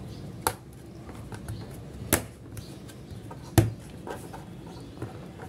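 Three sharp clicks as a laptop hard drive case is snapped shut, spaced about a second and a half apart, over faint steady room noise.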